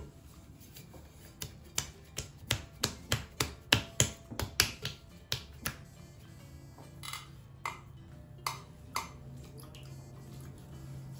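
Hands slapping and patting a ball of clay into a cone on the potter's wheel head: a quick run of sharp slaps, about three to four a second, then a few softer pats.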